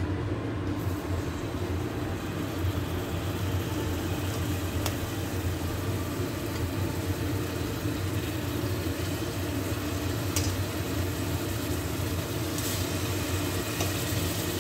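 Raw chicken pieces sizzling as they go into a pan of hot extra virgin olive oil, a steady hiss over a low hum, with a few light clicks.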